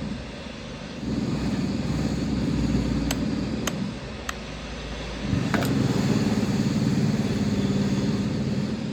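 A motor running with a steady low hum that eases off twice and picks up again, with four sharp clicks in the middle.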